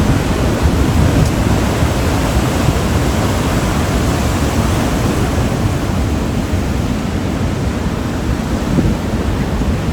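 Ocean surf washing against a rocky shore, a steady rush with a heavy low rumble of wind on the microphone.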